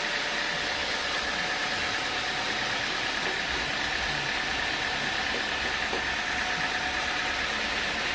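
Sawmill machinery running steadily: an even mechanical hum with a constant whine on top.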